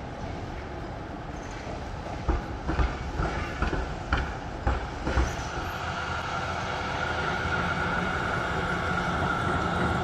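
Electric street tram passing close by, with the clatter of its wheels: a run of about eight sharp knocks over a low rumble, then a steady high whine that grows louder as it draws near.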